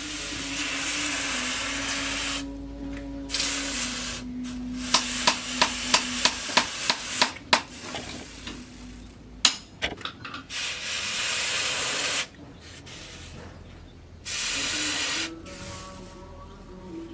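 Forge work on steel: several bursts of hissing, broken by a quick run of about eight ringing hammer strikes on metal, roughly three a second, about five seconds in.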